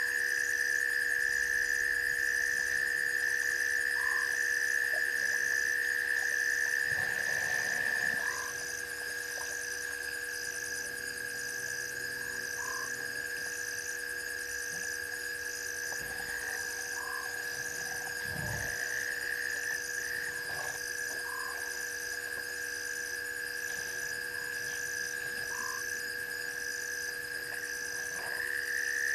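Night chorus of frogs and insects: a steady high trill, a fast even pulsing above it, and a short call repeated about every four seconds.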